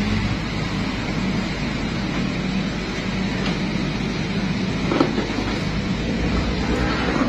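Excavator's diesel engine running steadily, with a single sharp knock about five seconds in.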